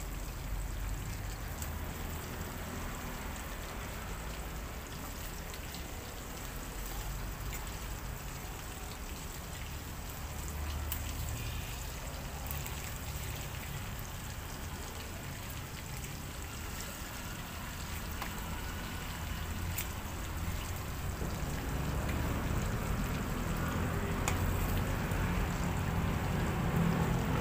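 Pork belly frying in oil in a wok: a steady sizzle with fine crackling, growing a little louder toward the end.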